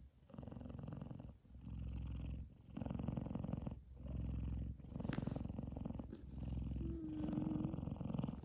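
F2 Savannah cat purring loudly while asleep and content. The purr comes in about six phrases of roughly a second each, breaking briefly between breaths.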